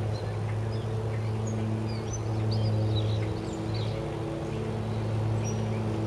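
A steady low machine hum with a few evenly spaced overtones, with small birds chirping in short calls over it and light wind rumbling on the microphone.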